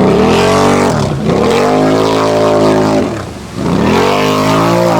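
ATV engine revving hard in the mud, throttle held high, with the pitch falling and climbing back up three times as the rider blips off and back on.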